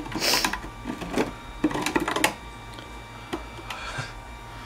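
Handling noise from the damaged wooden cabinet and metal chassis of an old tube radio: a quick run of clicks, knocks and rattles with a brief rustle near the start, then a few scattered clicks near the end.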